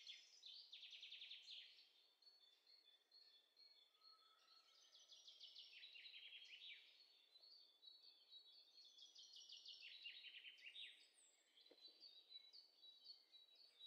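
Faint bird song: rapid trills of notes falling in pitch, repeated every few seconds, with short high notes between them. A single soft tap comes near the end.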